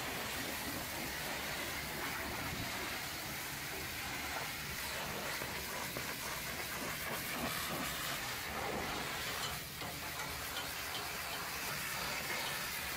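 High-pressure water jet from a pressure-washer lance spraying the stainless-steel rear of a tanker truck: a steady hiss of spray on metal, briefly dipping about ten seconds in.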